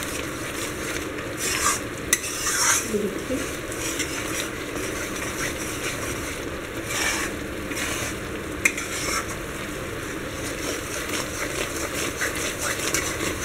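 Metal spatula stirring and scraping a thick mohanthal mixture of besan, ghee and sugar syrup around a metal kadhai over a lit gas flame, the mixture sizzling as it cooks, with a sharp clink of spatula on pan about two-thirds of the way through.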